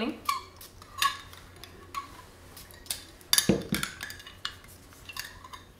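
Small metal tasting spoon clinking against glassware: a few light, separate clinks, with one louder knock about three and a half seconds in.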